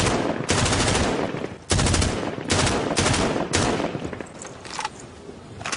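Gunfire sound effect: rapid volleys of automatic fire for about four seconds, then thinning to a few scattered shots that grow fainter.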